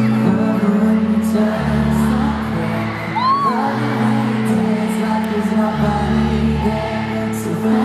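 Live pop band music in an arena heard from among the audience, with a sung vocal over steady bass and chords and the crowd cheering along. A short high cry rises and falls about three seconds in.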